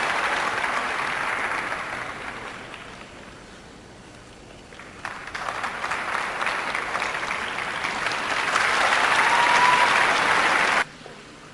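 Arena crowd applauding. The clapping thins out for a couple of seconds, swells up again and is loudest near the end, then cuts off suddenly.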